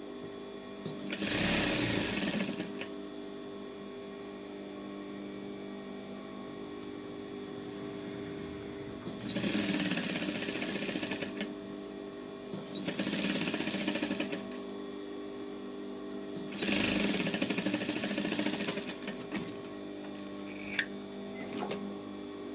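Industrial lockstitch sewing machine stitching along the trimmed neckline edge of a satin kaftan in four short runs, with pauses between as the fabric is repositioned. A few light clicks near the end.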